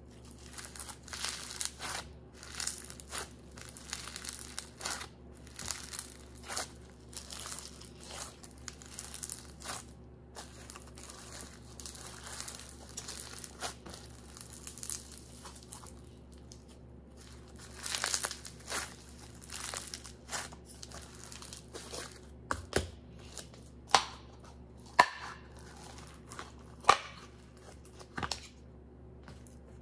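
Hand-worked textured slime being stretched, squeezed and kneaded, crackling and crinkling in short irregular bursts, with a few sharper pops near the end as it is pressed back into its tub.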